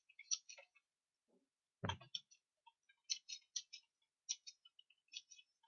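Faint computer keyboard keys clicking in quick, irregular runs as words are typed, with one heavier thump about two seconds in.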